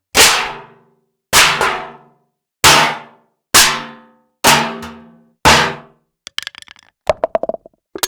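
A series of six sharp impact sound effects, each ringing briefly and dying away within about a second, spaced roughly a second apart. Near the end they give way to a rapid clatter of small clicks.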